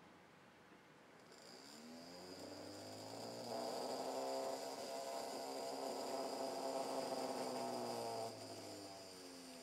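Small DC motor with a cork on its shaft running with a buzzing hum. It speeds up over the first few seconds, runs at a steady speed, then slows and winds down about eight seconds in, with a faint high whine alongside.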